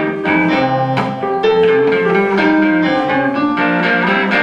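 Live instrumental music: an archtop guitar and a keyboard play a passage of changing notes, with no singing.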